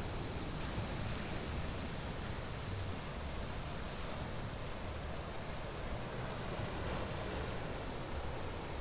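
Sea surf washing over and around rocks at the shoreline, a steady wash of noise, with an uneven low rumble of wind on the microphone.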